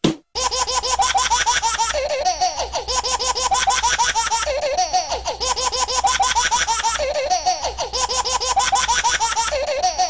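A high-pitched laughing sound effect: rapid giggles in quick succession, repeating without a break.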